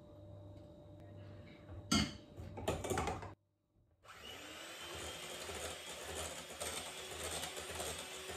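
A few loud knocks and clatters about two seconds in, then, after a brief gap, an electric hand mixer runs steadily, its beaters whisking cake batter in a glass bowl.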